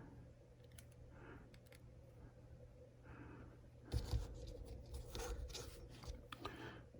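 Faint scraping, rubbing and clicking of hand work on metal parts, louder for a couple of seconds from about the middle, over a steady low hum.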